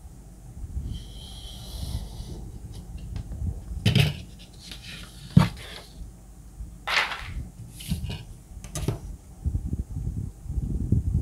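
A utility knife blade drawn along a steel ruler, slicing through art-block paper for about a second and a half. Then come knocks and rustles as the metal ruler and cut paper are shifted and set down on the cutting mat.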